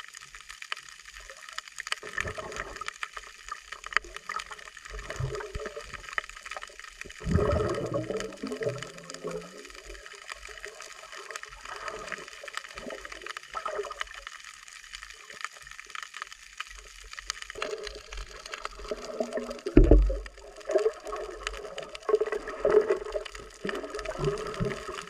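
Sea water splashing and gurgling close to the microphone, in uneven surges, with a louder splash about seven seconds in and the loudest about twenty seconds in.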